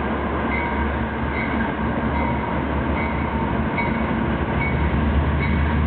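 Loaded freight train of stone hopper cars rolling past with a steady low rumble, a short high tone recurring about every second.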